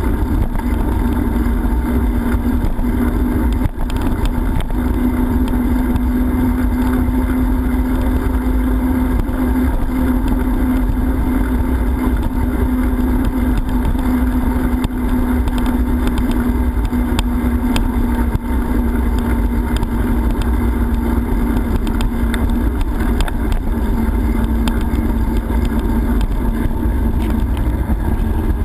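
Wind rushing over a GoPro's microphone during a bicycle ride: a steady, loud low rumble with a constant hum.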